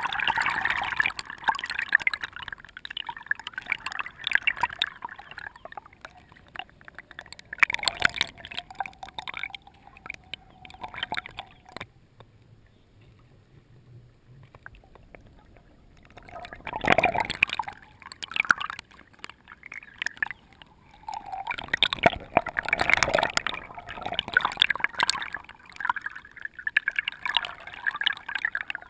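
River water sloshing and gurgling right at the surface as a wooden rowboat is rowed with bamboo oars, coming in irregular surges with a quieter lull of a few seconds midway.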